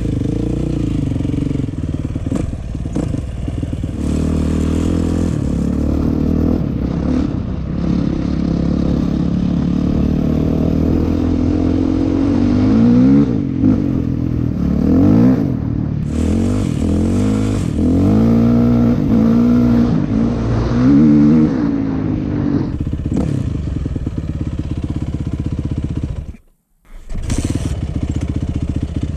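2003 Yamaha YZ450F's single-cylinder four-stroke engine running after a hot-start kick, its pitch rising and falling over and over as it is revved and ridden. The sound drops out briefly near the end.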